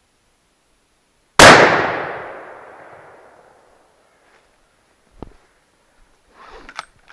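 A single rifle shot from a scoped hunting rifle, a sharp crack about a second and a half in that echoes through the forest and dies away over about two seconds. A few faint clicks and rustles follow near the end.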